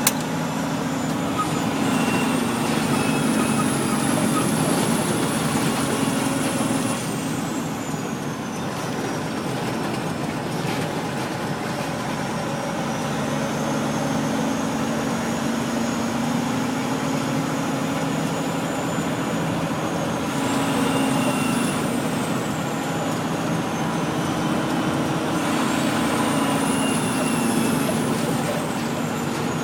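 Semi-truck diesel engine pulling under load, heard from inside the cab, with a high turbo whistle that rises and falls several times as the engine speed changes, over a steady rumble and rattle of the rig on a rough gravel haul road.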